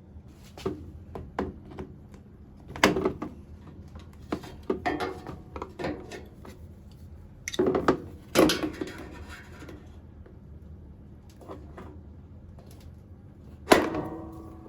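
Irregular clicks, knocks and scraping of plastic parts as the retaining clips on a washing machine's soap dispenser housing are worked loose, with louder knocks about 3, 8 and 14 seconds in.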